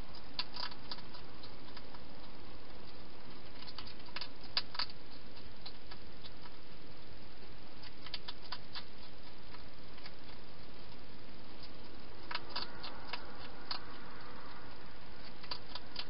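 European hedgehog eating from a bowl: bunches of short clicks and crunches from its chewing, over a steady hiss.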